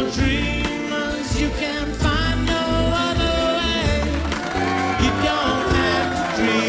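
A pop-rock song with a sung lead vocal over a band backing of bass and drums.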